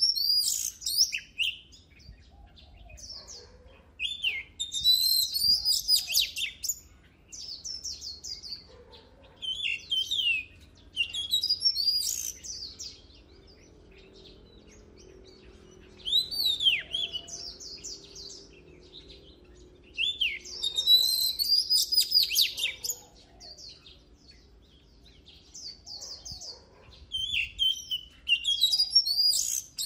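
Oriental magpie-robin singing: bursts of varied clear whistles, rising and falling sweeps and quick notes, each phrase a second or two long, coming every few seconds with quieter gaps between.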